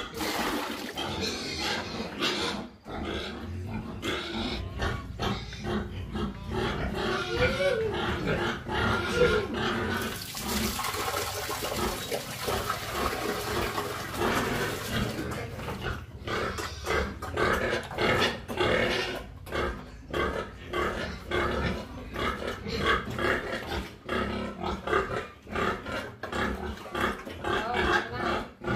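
Pigs grunting in their pens, sometimes rising into short pitched calls, with a steady hiss of wet feed being poured from a bucket into a trough between about ten and fifteen seconds in.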